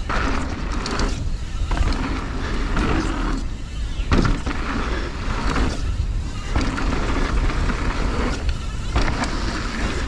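Transition Spire mountain bike riding down a dirt jump trail: wind rushing over the mic and knobby tyres rumbling on fresh dirt, with brief lulls every couple of seconds.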